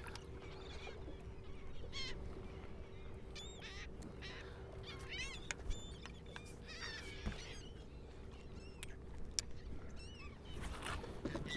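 Seabirds calling over a feeding frenzy of fish and bait fish, many short, sharp, repeated calls scattered throughout, with a steady low hum underneath.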